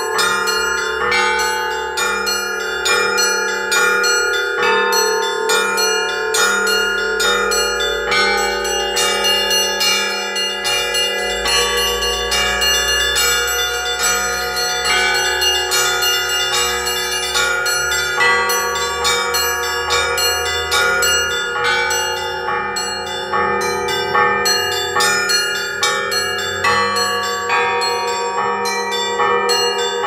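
Russian Orthodox church bells rung by hand from the clapper ropes by one ringer. Quick, steady rhythmic strokes of the small bells ring over the lingering hum of the larger bells, with the deep tone of a big bell swelling in the middle.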